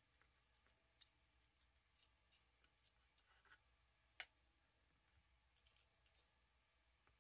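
Faint small clicks and taps of an electric tachometer's plastic housing and circuit board being handled on a wooden bench, with one sharper tap about four seconds in as the plastic inner case is set down.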